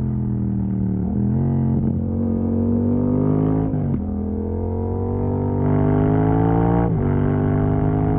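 Yamaha MT-07 689 cc parallel-twin running through an exhaust with the dB killer removed, pulling up through the gears. The engine note climbs steadily, then drops abruptly at quickshifter upshifts about four and seven seconds in.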